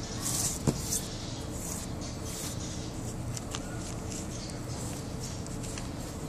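Sheets of origami paper rustling and crinkling as they are folded and creased by hand, loudest in the first second with a sharp tap, then lighter scattered paper ticks over a steady background hiss.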